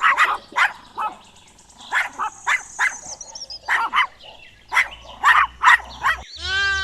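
Puppy barking and yipping in short, high barks that come in irregular clusters. Just before the end the sound cuts to a long, drawn-out bleat.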